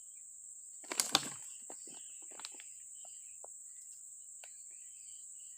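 Steady high-pitched chirring of insects, typical of crickets. A couple of sharp knocks about a second in are the loudest sound, and a few small clicks follow over the next few seconds.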